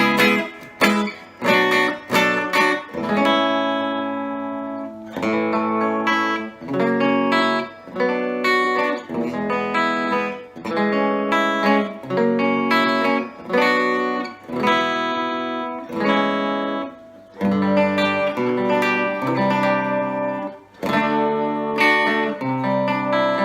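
Epiphone Casino hollow-body electric guitar played clean through a VOX AC15C1X valve amp on its Top Boost channel: quick strummed chords at first, then picked chords and single notes left to ring.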